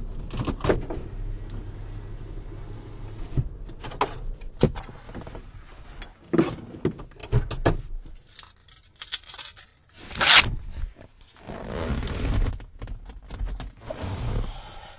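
Keys jangling, with clicks and knocks of a car door and handling as the driver gets out. The car's idling engine hum cuts off about eight seconds in; the loudest knock comes about two seconds later.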